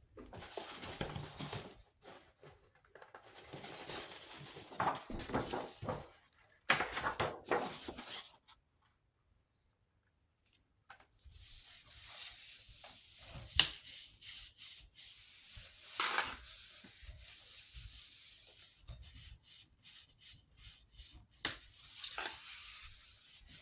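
Hands rubbing and burnishing printing paper against a gel printing plate to pull a monoprint, in irregular stretches of dry rustling with a few light taps and a short pause near the middle.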